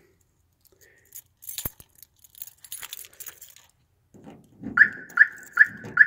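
Keys jangling and a key working a car door lock, with one sharp click, then the newly installed Pyle Watchdog car alarm going off near the end in short high beeps, about two and a half a second: its shock sensor tripped by the key at the lock, which is called sensitive.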